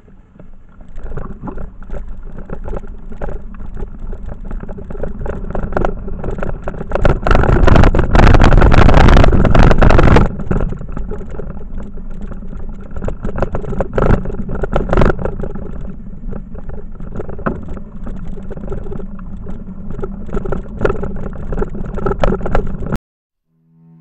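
Bicycle ride on a rough, muddy trail heard from a handlebar-mounted camera: rushing wind and rumble with frequent knocks and rattles from the bumps, loudest for a few seconds in the middle. It cuts off suddenly near the end.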